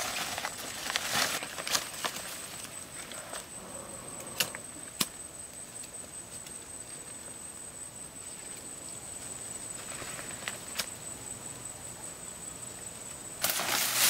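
Leaves and dry grass rustling as large leaves are picked and bundled by hand, with a few sharp snaps. A steady high-pitched whine runs underneath, and louder rustling comes in near the end.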